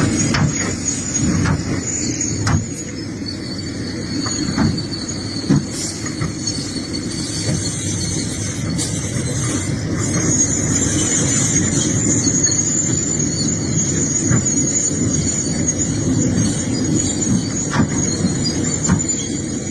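Excavator working: the diesel engine runs steadily under a high, sustained metallic squeal that gets louder about halfway through.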